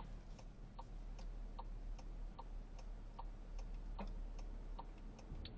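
A car's turn-signal indicator ticking inside the cabin: an even tick-tock, about two and a half clicks a second.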